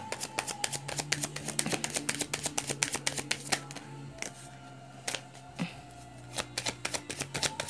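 A deck of oracle cards shuffled by hand. Rapid dense card clicks run for about three and a half seconds, then there is a pause broken by a couple of single flicks, then another quick run of clicks near the end.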